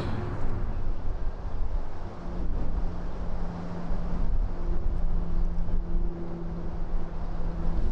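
Low wind rumble, with a low steady hum coming in about two seconds in.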